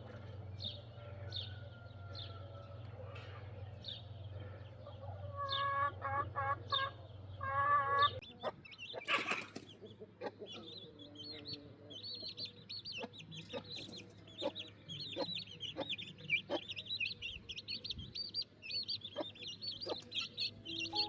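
Chickens clucking, with a run of short clucks about six seconds in, while small birds chirp throughout and turn into a dense chatter in the second half. A louder brief noise comes about nine seconds in.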